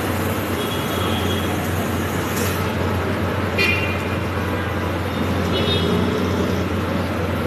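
Street traffic on a rain-flooded road: a steady engine hum and rushing noise, with car horns tooting, a faint one about a second in, the loudest one briefly past the middle, and another near the end.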